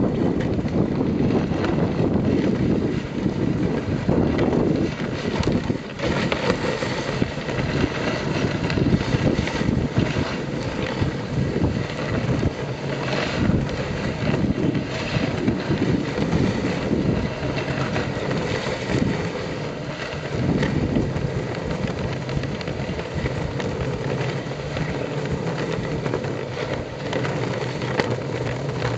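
Dog sled runners sliding over snow as the sled is pulled along a trail: a steady rough hiss with many small knocks and scrapes, and wind on the microphone.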